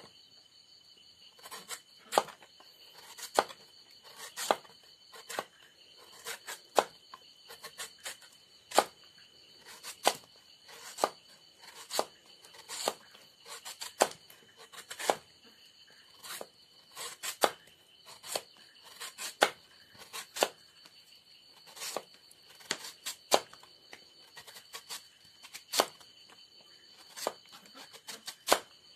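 A knife slicing fresh bamboo shoot and knocking against a cutting board, a sharp cut about once a second and sometimes two in quick succession. A steady high insect trill runs underneath.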